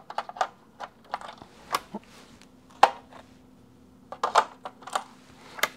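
Connector boards being fitted back onto a CableEye M3U cable tester: a run of irregular clicks and knocks of plastic and metal parts, the sharpest about three seconds in.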